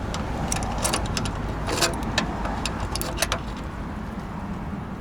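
A vehicle engine running at low speed, a steady low rumble, with a scatter of sharp clicks and taps in the first three and a half seconds.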